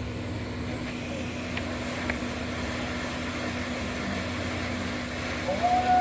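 Hot air rework gun blowing steadily, a continuous hiss with a low hum, while it heats the board to free a soldered phone charging port. Near the end a louder, steady higher tone comes in.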